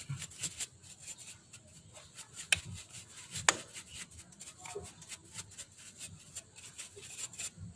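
Irregular rubbing and scraping with light clicks and a couple of sharper knocks: grime and grease being cleaned off a scooter's rear drum-brake assembly by hand.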